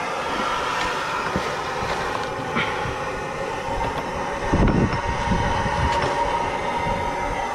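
A handheld gas torch burning with a steady, hissing flame while it heats an old subframe bushing so the rubber melts and the bushing can be pushed out. Short metal knocks break in here and there, with a louder low thump about four and a half seconds in.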